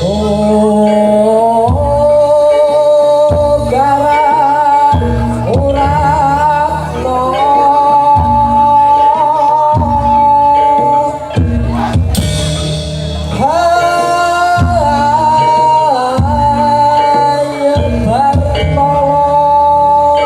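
Live Reog accompaniment music: a loud, sustained melody that wavers in pitch, carried over a steady low accompaniment.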